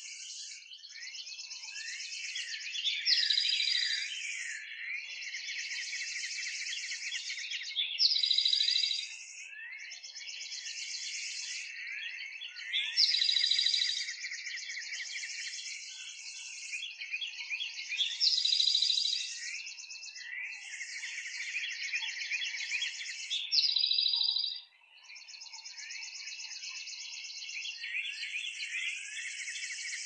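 Many high-pitched bird chirps and twitters crowding together, with a louder burst of calls about every five seconds.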